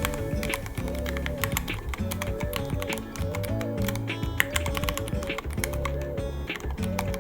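Steady typing on a Ducky One 3 mechanical keyboard, several keystrokes a second, over background music with a bass line and a simple repeating melody.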